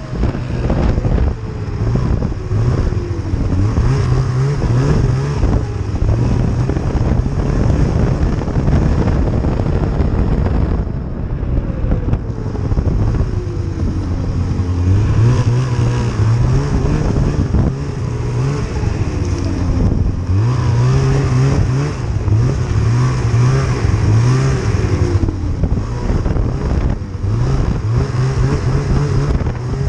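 Snowmobile engine running under throttle while riding, its pitch rising and falling repeatedly as it speeds up and eases off.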